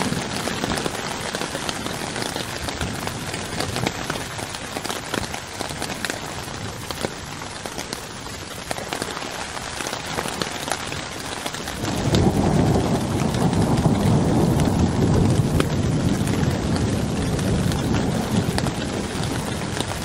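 Steady rain falling on a tarp tent roof, with many single drops ticking against the fabric. About twelve seconds in, a long, low roll of thunder comes in and keeps rumbling under the rain.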